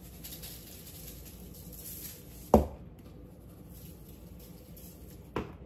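Seasonings (salt, pepper, garlic powder) being shaken over oiled potatoes, a faint patter of grains, with a single sharp knock about halfway through and a lighter one near the end, as a container is set down on the counter.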